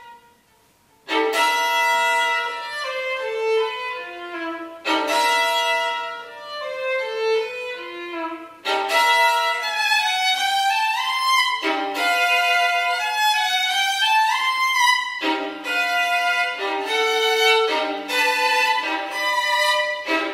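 Solo violin playing a contemporary piece. A held note dies away into a brief pause, then loud, sharply accented phrases of fast notes break in about a second later. The phrases stop and restart with new attacks several times.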